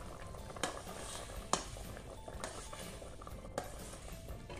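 Metal ladle stirring soup in a stainless steel pot, knocking against the pot about four times at irregular intervals over a steady low hiss of liquid.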